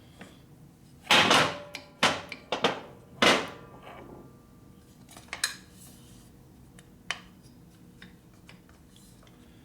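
Metal tools and brake parts clanking as a motorcycle brake is taken apart: several sharp metallic knocks in the first three and a half seconds, then a few lighter clicks.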